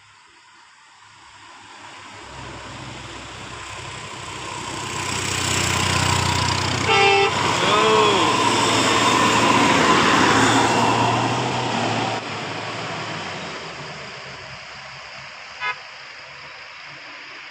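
A bus passing close by: its engine rumble and tyre noise build up, peak and fade away. About seven seconds in it gives a brief blip of its horn with a short rising-and-falling tone right after, and another short faint toot comes near the end.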